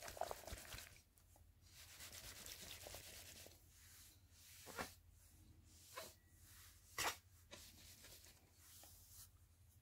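Near silence, with a soft rustle a couple of seconds in and three short clicks or taps in the second half.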